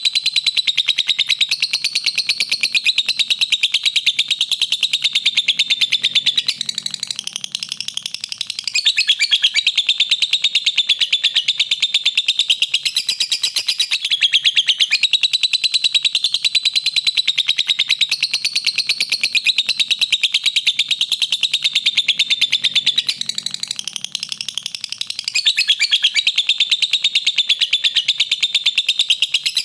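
Lovebird singing a long, rapid, unbroken chattering trill, the continuous song used as a masteran recording to train other lovebirds. It softens briefly twice, about sixteen seconds apart.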